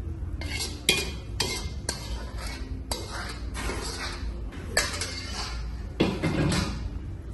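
A metal ladle scraping and clanking against a steel wok as food is scooped out and served, with several sharp clinks of metal on metal.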